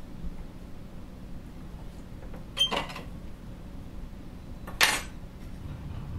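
Two short knocks or clatters about two seconds apart, the sounds of tools being handled on a workbench, over a low steady hum.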